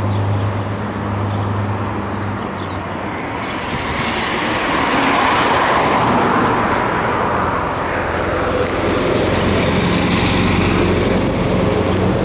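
Road traffic: a low steady engine hum that fades after about two and a half seconds, then two broad rushing swells of vehicles going past, the first about five seconds in, the second about nine seconds in. Small birds chirp briefly in the first few seconds.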